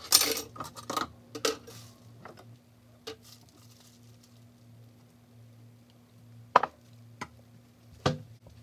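Kitchen jars and containers being picked up and set down on a counter as groceries are put away: a quick run of clatters and knocks, then single knocks a second or more apart, over a steady low hum.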